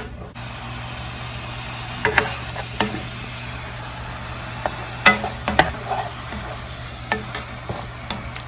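Strips of steak sizzling in seasoned sauce in a frying pan, with a steady hiss. A spatula stirs the meat and knocks and scrapes against the pan a handful of times.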